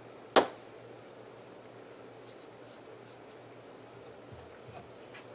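A single sharp click about half a second in, then faint rubbing and light ticks as the oil bottle and fine sharpening stone are handled.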